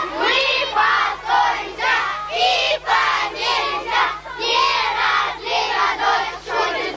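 A group of children's voices chanting together in short rhythmic phrases, a squad shouting its call in chorus.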